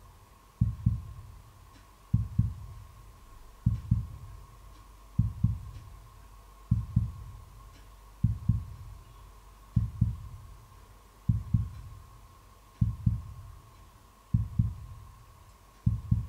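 Slow heartbeat sound effect: a low double thump, lub-dub, repeating about every second and a half, about eleven times, over a faint steady high tone.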